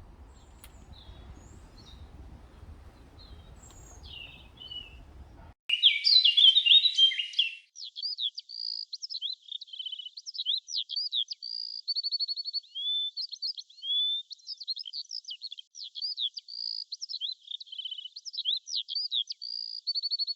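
Songbirds chirping and singing. For the first five seconds or so the chirps are faint over a low background hum; then the hum cuts out and a clear run of repeated chirps and short trills carries on.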